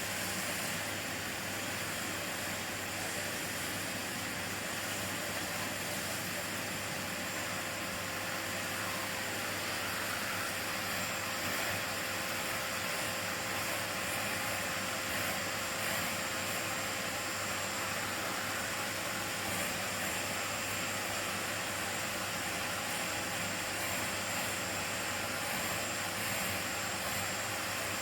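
Miele vacuum cleaner running steadily: an even rush of motor and airflow noise with a constant tone under it, with no change in pitch or level.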